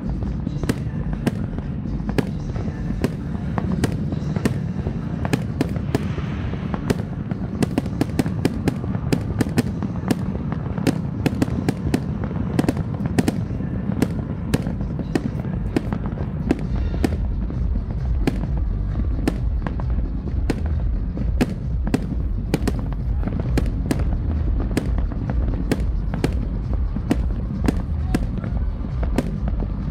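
Fireworks display going off: a dense, unbroken run of sharp bangs and crackles over a steady low rumble.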